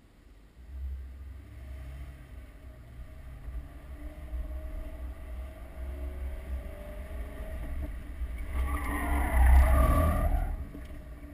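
Car engine accelerating hard in reverse, its pitch climbing over several seconds. About 8.5 s in, the tyres squeal and scrub loudly for about two seconds as the car spins round in a J-turn, and the sound then drops back.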